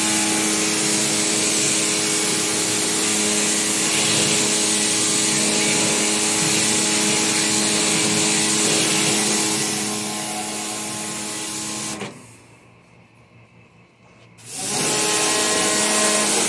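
Pressure washer running, its water jet hissing against the fins of an air conditioner's outdoor unit. It stops about twelve seconds in and starts again some two seconds later.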